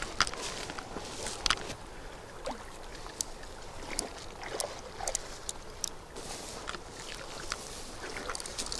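Quiet lapping and small splashes of river water around a hooked trout being played on a fly line, with scattered sharp clicks.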